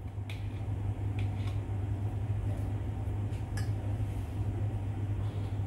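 A few soft scrapes and taps of a metal spoon pushing minced chicken out of a plastic bowl into another bowl, over a steady low hum.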